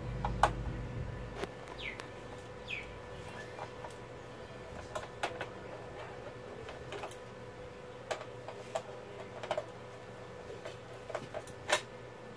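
Scattered light clicks and taps of a small screwdriver working along the edge of an LCD TV's sheet-metal back chassis, with a sharper click near the end. A faint steady hum runs underneath.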